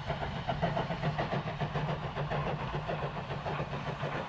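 South Eastern and Chatham Railway 0-6-0 steam locomotive working a train, its exhaust chuffing in a quick, even rhythm of beats.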